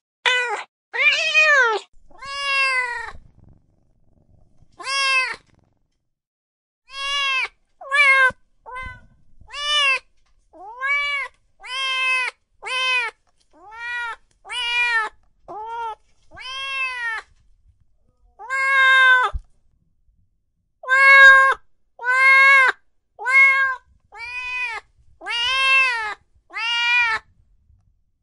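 Domestic cats meowing: a long run of separate meows, each rising then falling in pitch, at a loud, even level with brief pauses between them.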